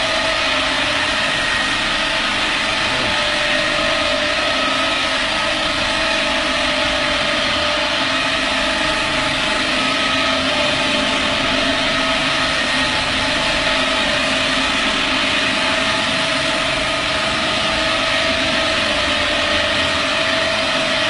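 R590 electric concrete floor grinder running steadily, its magnetic grinding heads working the concrete floor. It makes a constant dense hiss with a steady tone over it that stays even throughout.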